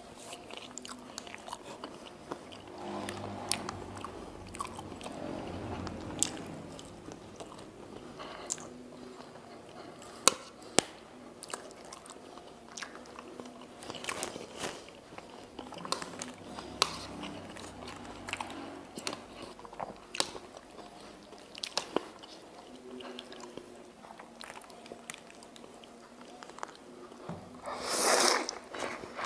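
Close-up eating sounds of a person chewing chicken noodles, with wet mouth clicks and crunches throughout, then a loud slurp of noodles near the end.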